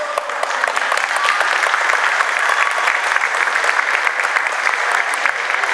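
Audience applauding: dense, steady hand clapping that rises at the start and keeps going throughout.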